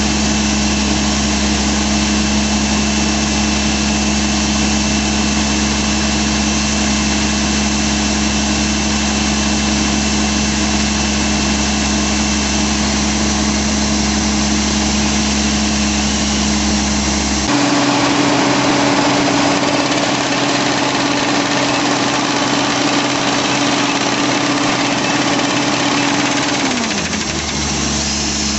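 Crawler-mounted quarry rock drill running steadily. About two-thirds of the way through, the sound changes abruptly to a hissier running with a higher steady tone, and near the end that tone drops in pitch and the earlier hum returns.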